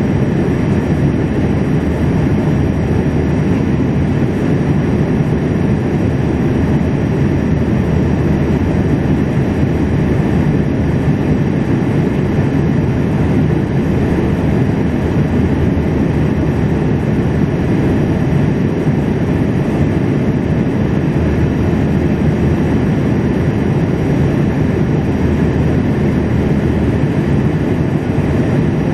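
Steady cabin noise inside a Boeing 787-8 in flight: the low, even rumble of its Rolls-Royce Trent 1000 engine and the rush of air past the fuselage, with hiss above.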